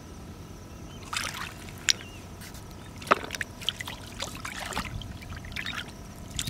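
Shallow seawater splashing and sloshing in irregular bursts as hands and a pair of metal tongs work through it, with a few sharp clicks, the loudest a little after three seconds in.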